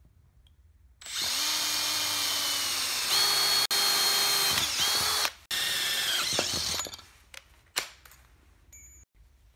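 Electric hand drill boring a hole through a piece of iron held in a bench vise: the motor starts about a second in and runs steadily under load for several seconds, with two brief stops, then winds down. A few light clicks follow.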